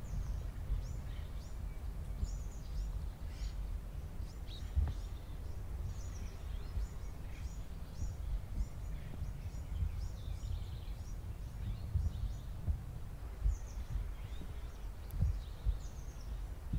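Wind rumbling on the microphone, with small birds chirping many times over it.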